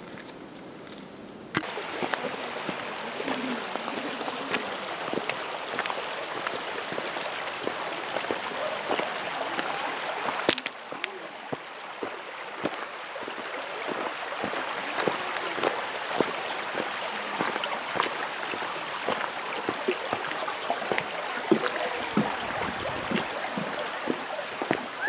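Shallow creek running over a gravel bed, a steady rush of water, with footsteps crunching on gravel as scattered clicks through it. The water comes in about a second and a half in, after a quieter moment.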